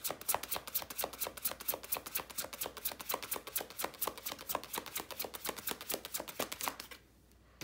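Tarot deck being shuffled by hand: a fast, steady run of card snaps and clicks that stops about seven seconds in.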